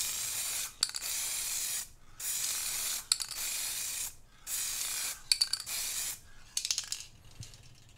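Aerosol can of acrylic satin lacquer spraying a second coat in a series of hissing bursts, each about a second long with short gaps between them, and small clicks between some bursts. The spraying stops about seven seconds in.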